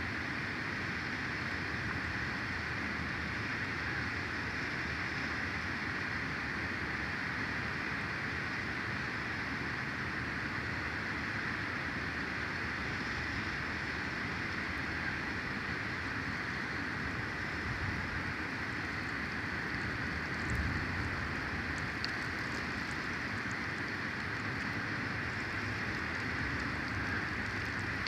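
Steady, even outdoor hiss with a low rumble underneath, and a short low thump about twenty seconds in.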